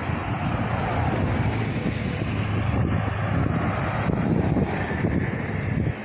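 Mercedes-Benz single-deck city bus driving past close by, its engine and tyres making a steady low drone, with wind noise on the microphone.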